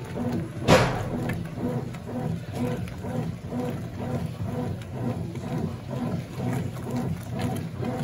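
Consul CWS12 12 kg washing machine agitating a load of dirty jeans in water during a pre-wash, a rhythmic churning stroke about every 0.7 seconds. A single sharp knock, the loudest sound, comes just under a second in.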